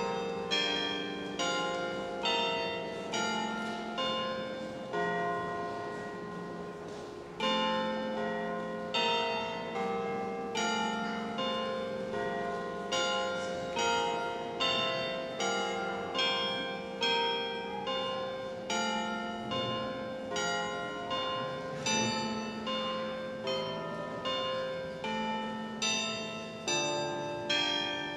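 Bells ringing at several pitches, one stroke after another at about one a second, each note ringing on into the next. There is a lull of a couple of seconds about a fifth of the way in.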